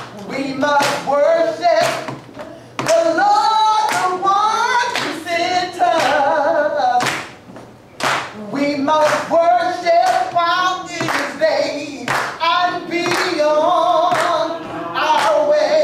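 A gospel singer sings long, wavering held notes to steady hand clapping in time.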